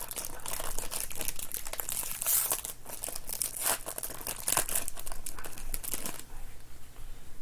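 Plastic trading-card pack wrapper being torn open and crinkled by hand, a dense papery crackle that stops about six seconds in.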